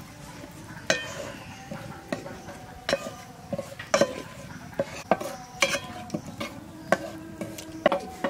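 A spatula stirring a spice paste frying in oil in a pot, knocking against the pot every second or so, each knock ringing briefly.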